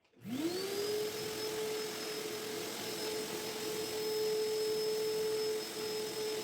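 Vacuum cleaner switched on: the motor spins up within a fraction of a second, then runs at a steady whine with a hiss of rushing air.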